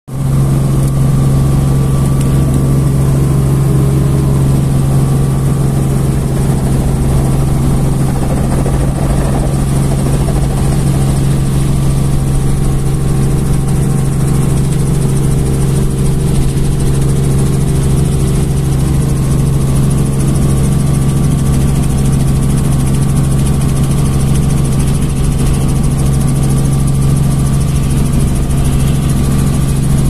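Engine and rotor of a small open-cockpit rotorcraft running steadily at high power during its take-off roll, heard from on board as a loud, unchanging drone.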